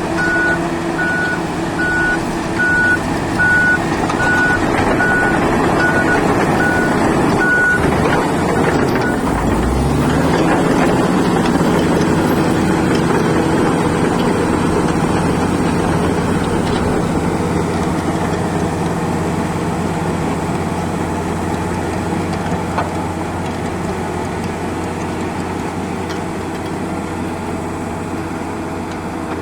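Heavy diesel truck reversing, its backup alarm beeping about one and a half times a second for the first nine seconds or so. The beeping then stops, the engine revs up about ten seconds in and keeps running steadily.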